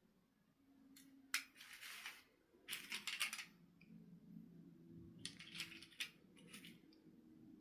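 Quiet handling noises: short scratchy rustles and clicks in a few clusters, over a faint low hum.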